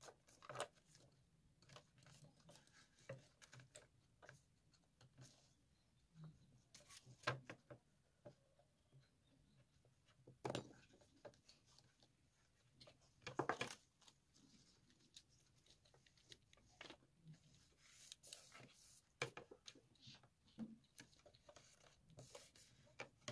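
Faint, scattered rustling of paper and small taps and clicks as paper, a glue stick and a clipboard-backed board are handled on a desk, with two slightly louder knocks about ten and thirteen seconds in.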